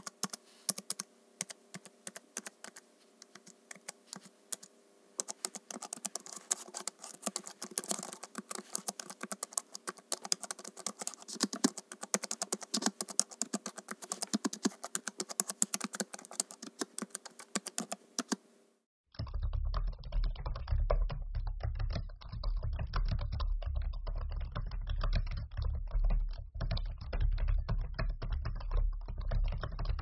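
Typing on a MacBook keyboard: light key clicks, scattered at first, then fast and continuous from about five seconds in, over a faint steady hum. After a short break about two-thirds through, a different laptop keyboard is typed on, a duller recording with a strong low rumble under the keystrokes.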